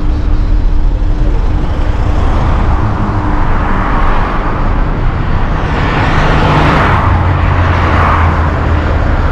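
Road traffic on a multi-lane road: vehicles passing one after another as swells of tyre and engine noise, over a steady low rumble.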